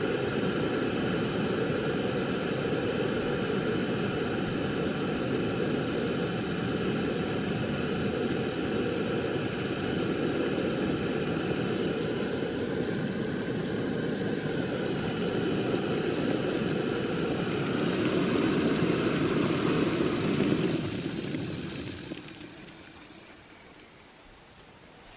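A steady mechanical drone, like an engine running, with several fixed whining tones over a rushing noise; it dies away a few seconds before the end.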